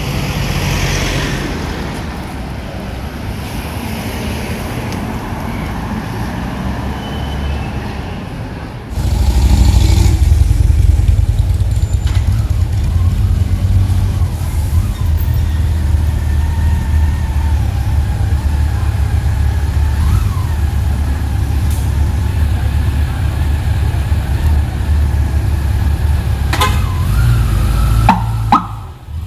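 Motorcade traffic: car and police motorcycle engines running and moving along the street. About nine seconds in, a loud, steady low rumble starts suddenly and holds until just before the end.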